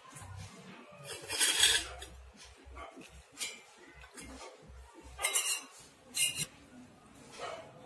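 A metal slotted spoon scraping and clinking against a steel pan and a steel bowl as noodles are scooped and served: about five separate scrapes and clinks, the loudest and longest about a second and a half in.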